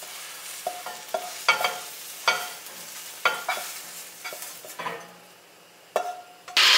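Metal clinks and scrapes of a stainless skillet and utensil as cooked eggs are tipped into a small pan on the stove, with light sizzling. Near the end a blender starts suddenly, loud and steady, the loudest sound here.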